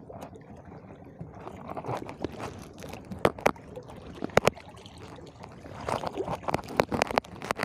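Sea water sloshing and gurgling against the shore, with a few sharp clicks and knocks in pairs around the middle and a cluster near the end.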